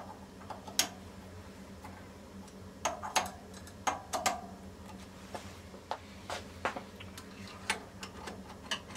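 Irregular metallic clicks and light knocks of a hex key working the socket cap screws of a steel clamp block on a lathe bed, with small metal parts being handled, over a steady low hum. The clicks are sharpest a little under a second in and in a cluster around three to four and a half seconds in.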